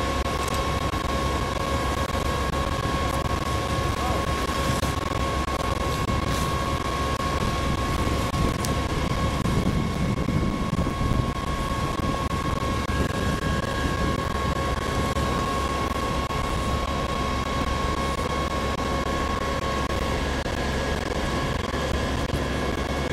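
Fire pump engine running steadily under load, with a constant high whine over a low rumble, while it feeds a charged hose line.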